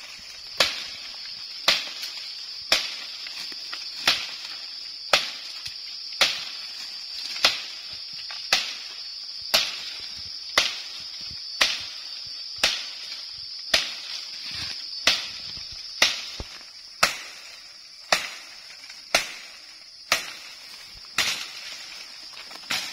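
Machete chopping at a rattan cane, one sharp blow about every second in a steady rhythm, over a steady high-pitched drone.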